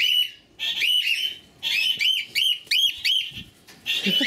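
Cockatiels calling over and over: loud whistled chirps that rise and fall, in irregular bursts with a quick run of four in a row around the middle.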